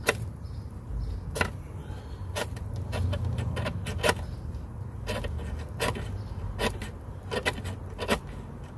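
Small fire of curled wood shavings crackling, with a dozen or so sharp pops at irregular intervals over a low steady rumble.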